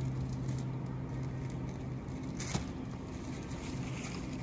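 Shopping cart rattling and rolling over a store floor, over a steady low hum that stops about halfway, with one sharp click just after.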